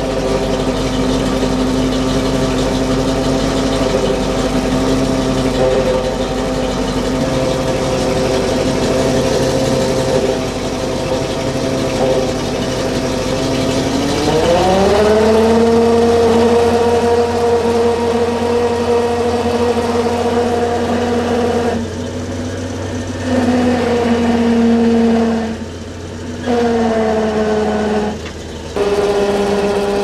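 Boom truck engine idling, then revved up about halfway through and held at a higher, steady speed to drive its hydraulic crane, with a few brief dips in speed near the end.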